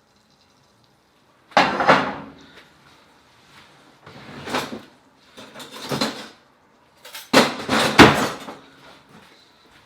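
Kitchen handling noises: four short bursts of clatter and rustle as dishes and utensils are moved about, the last and loudest about seven to eight and a half seconds in.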